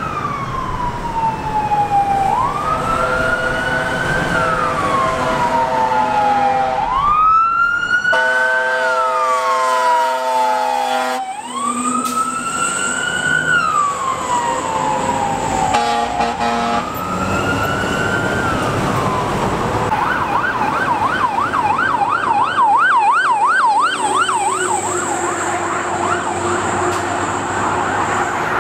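Electronic siren of a CAL FIRE fire engine responding Code 3: a slow wail rising and falling every four to five seconds, switching to a fast yelp about twenty seconds in. A steady horn blast sounds over the wail twice, once for about three seconds and once briefly.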